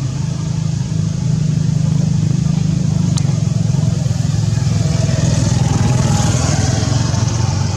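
An engine running steadily with a fast, even low hum, and a single sharp click about three seconds in.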